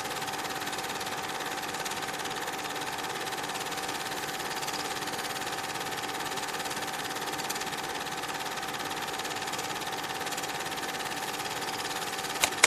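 A steady mechanical whirr with a constant mid-pitched tone that does not change, and a single sharp click near the end.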